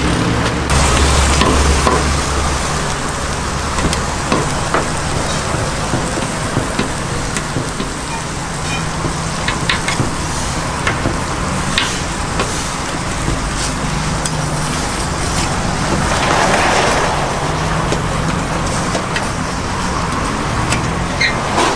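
Pork chop steaks sizzling in oil on a flat-top griddle, with scattered sharp clicks and scrapes of a metal cleaver blade on the griddle as the meat is pressed and turned. A low steady hum runs underneath.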